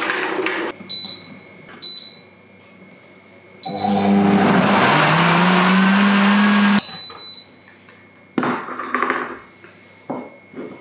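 Countertop blender: its control buttons beep a few times, then the motor runs for about three seconds, rising in pitch as it spins up, and stops abruptly with more beeps. A few clunks follow as the jug is lifted off the base.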